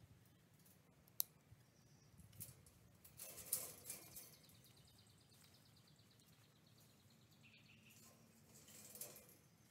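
Mostly near silence, broken by a few faint clicks and scrapes of welded-wire fencing being handled at a fence post: one sharp click about a second in, a short cluster around the middle, and a soft one near the end. A faint, fast, high trill runs in the background through the middle.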